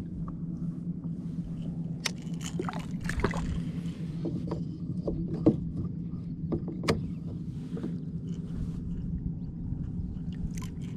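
Scattered clicks, knocks and small splashes on and beside a fishing kayak as a fish is reeled in and landed, over a steady low hum.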